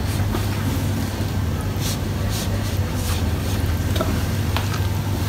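A wet plaster-of-Paris splint slab being squeezed and stroked by gloved hands over a bucket, with water dripping and splashing back into the bucket in short, scattered bursts. This is the step of stripping excess water off the slab before it is laid on. A steady low hum runs underneath and is the loudest sound.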